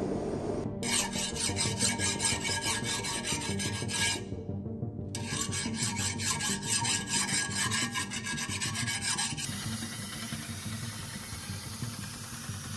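Hand file rasping over the steel blade clamped in a vise, in quick repeated strokes, with a short pause about four seconds in. About nine seconds in the filing gives way to a steadier whir as the blade goes onto a belt grinder.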